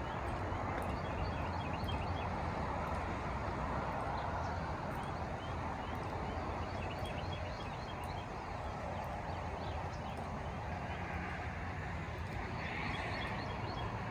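Steady road traffic noise from the highway under the overpass, with many short bird chirps over it and footsteps on the bridge deck.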